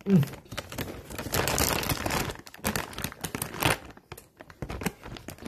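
Crackly crinkling and tearing as a fast-food chicken sandwich is pulled apart by hand, densest from about a second in to nearly four seconds, then thinning to a few small clicks. A brief voiced murmur comes right at the start.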